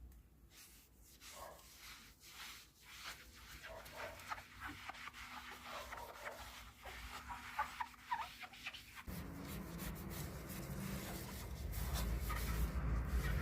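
Glass of a fireplace door being scrubbed with its own ash, which works as a mild abrasive. There are many short rubbing strokes at first, and then about nine seconds in it turns into a steadier, louder scrubbing noise.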